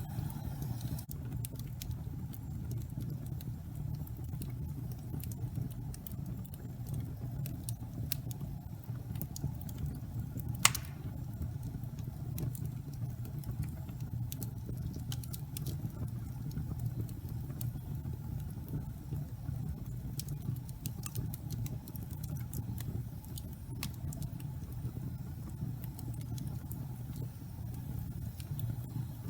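Fire burning in a fireplace: a steady low rumble with scattered crackles and pops, and one sharp, loud pop about eleven seconds in.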